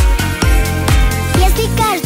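Instrumental backing of an upbeat electronic dance-pop children's song: a steady kick drum about twice a second under synth chords. A wavering, pitch-bending melody line comes in near the end.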